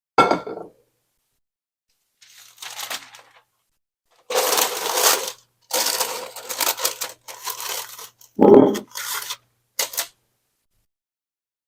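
Handling noises: a sharp knock, then several bursts of scraping and rustling, a heavier thump about eight and a half seconds in, and a last click.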